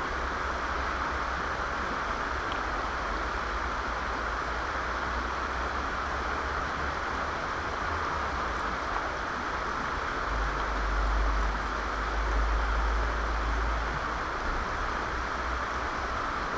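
Steady rushing of a shallow river running over rocks, with a low rumble for a few seconds from about ten seconds in.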